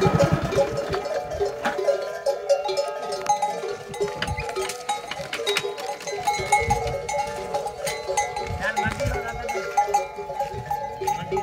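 Neck bells on walking camels clanking irregularly, several bells at different pitches ringing over one another as the herd moves.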